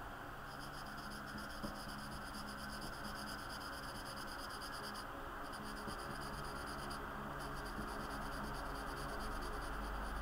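Felt-tip marker scratching quickly back and forth on sketchbook paper as a black area is filled in, stopping briefly twice, over a faint steady hiss and low hum.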